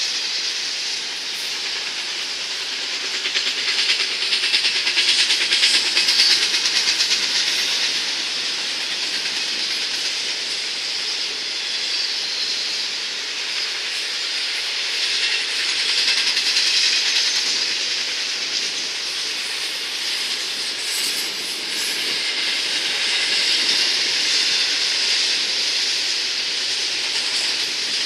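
Double-stack container train's loaded well cars rolling past: a steady rushing hiss of steel wheels on the rails with some clickety-clack, swelling and easing a little as the cars go by.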